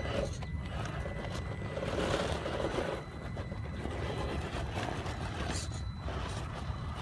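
Tamiya CC-01 RC crawler climbing loose shale: its small electric motor and gears run under load while stones crunch and clatter under the tyres, louder for a second or so around the middle.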